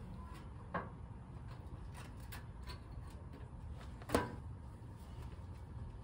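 Two light clunks, a small one near the start and a louder one about four seconds in, as the top cover of an outdoor air-conditioner condenser unit is handled and fitted back into place, over a low steady rumble.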